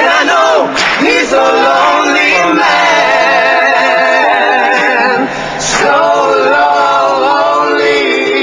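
Several male voices singing together in harmony, holding long notes with vibrato, with a short break about five seconds in.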